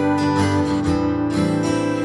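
Background music featuring plucked guitar, with notes held and overlapping.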